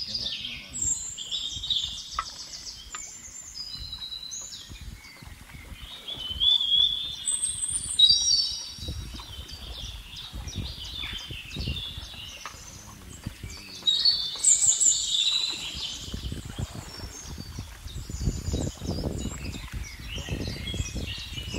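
Several birds chirping and singing at once, with quick repeated high notes and short trills. From about nine seconds in, an uneven low rumble runs underneath.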